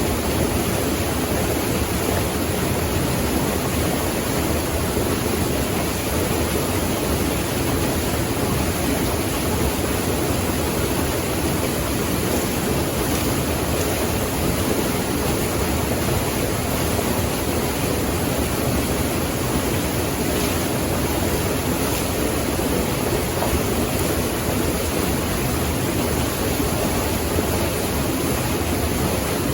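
Rushing water, a steady unbroken rush with no changes.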